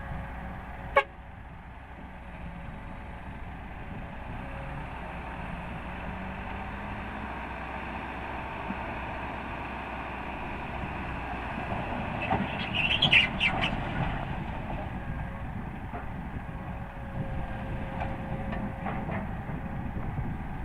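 Diesel heavy construction machinery running steadily, with a sharp click about a second in and a cluster of loud metal clanks and squeaks about two-thirds of the way through.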